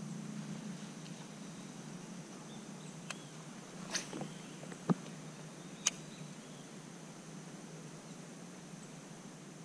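Kayak fishing on a marsh: a few sharp clicks and one solid knock from the rod and gear being handled against the kayak hull, spaced about a second apart in the middle. Under them run a low steady rumble and a faint, steady, high insect-like whine.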